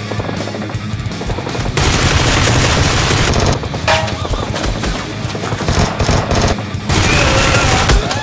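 Bursts of rapid automatic gunfire over background music. One long burst about two seconds in and another near the end.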